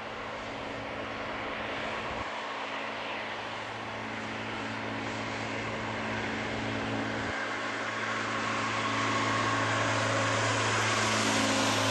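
Jet airliner engines running at taxi idle: a steady rumble with a high-pitched whine and hiss that grows louder over the last few seconds.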